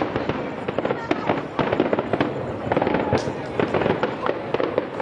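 Fireworks going off in a dense barrage: many rapid, overlapping bangs and crackles with no break.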